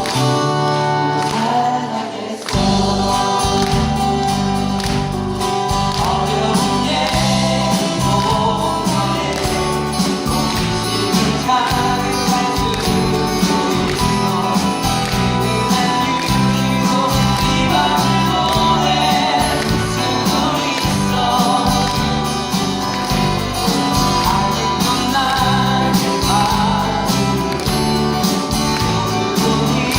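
Live band music with several voices singing together. The bass and full band come in about two and a half seconds in.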